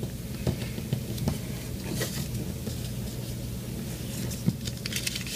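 A sheet of origami paper being folded and creased by hand: scattered soft crinkles and taps over a steady low hum, with a short run of crackling near the end.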